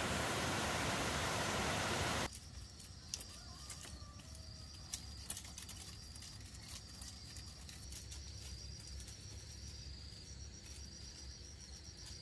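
A loud steady rushing noise cuts off abruptly about two seconds in. Crickets then chirp in short, repeated high trills, with a few faint clicks.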